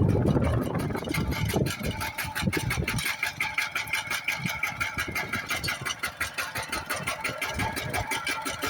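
Kubota machine's engine running steadily, its firing pulses in a rapid even rhythm, with a steady high whine over it. The low rumble is heavier for the first three seconds, then thins out.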